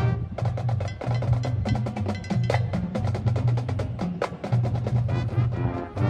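High school marching band playing: brass ensemble with drums and mallet percussion, many percussive strikes over sustained horn chords.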